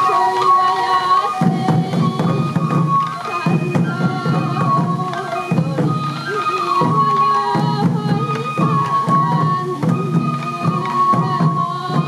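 Traditional Sansa Odori festival music: a high, held melody in the manner of a Japanese bamboo flute over the beat of the dancers' small taiko drums.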